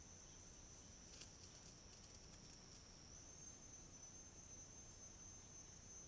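Faint, steady, high-pitched insect drone, its pitch stepping up slightly about three seconds in. A few faint crackles come between about one and two and a half seconds in.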